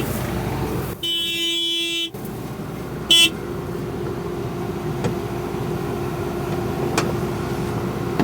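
Combine's warning tone or horn sounds in a blast of about a second, then a shorter, louder blast about three seconds in, over the engine running steadily. There are a couple of faint clicks near the end.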